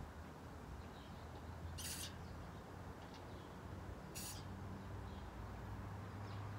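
Aerosol can of gold spray paint hissing in two short bursts, about two seconds in and again about four seconds in, over a low steady hum.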